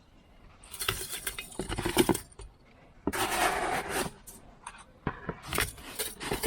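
Loose metal key blanks clinking and jangling together in several short bursts, with a gritty rustle.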